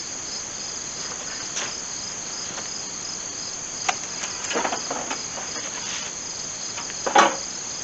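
Steady insect chorus, a high trill with a fast, even pulse. A few short knocks and rustles of handling sit over it, the loudest about seven seconds in.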